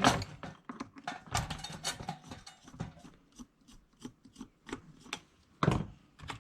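Irregular clicks, knocks and rattles of a toy oven's plastic and metal parts being handled and pried at during a teardown. There is a louder knock at the start and another cluster of knocks near the end.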